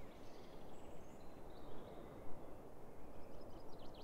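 Quiet woodland ambience: a steady low background noise with faint songbirds chirping, a quick run of high chirps near the end.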